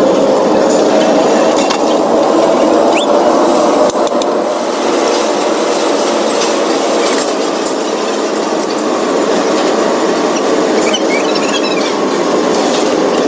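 Steady, loud running noise of workshop machinery, with a few faint metallic clicks and taps over it.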